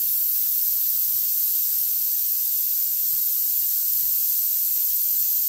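Refrigerant hissing out of a Jeep Liberty's air-conditioning system as the charged system is vented through a service port: a loud, steady, high hiss.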